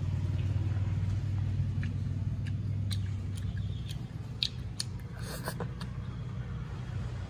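A child eating noodles: chewing, a fork clicking against the plate several times, and a short slurp about five seconds in. Under it runs a steady low hum that weakens about four seconds in.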